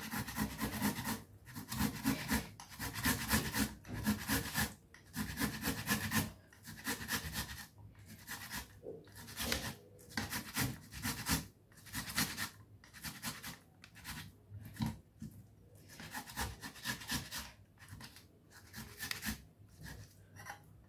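Tomatoes being grated on a metal box grater: repeated rasping strokes of the flesh against the grater, about two to three a second, in runs with brief pauses.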